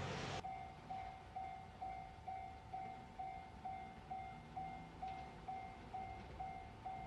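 Japanese level-crossing warning bell ringing, a repeating electronic ding about two and a half times a second. Train noise cuts off abruptly about half a second in.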